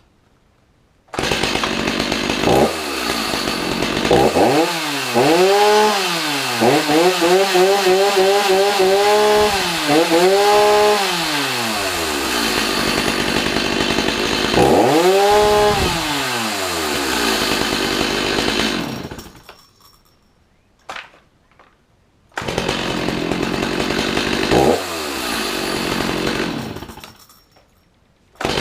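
Stihl MS 310 two-stroke chainsaw on its first run in 24 years, a cold start: the engine catches about a second in and is revved up and down several times, then dies. A few seconds later it catches again, runs with one rev, cuts out once more, and fires up again right at the end.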